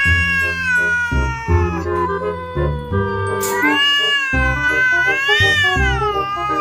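A cat giving two long, drawn-out yowls, the first sliding slowly down in pitch and the second rising and then falling, over background music with a steady beat.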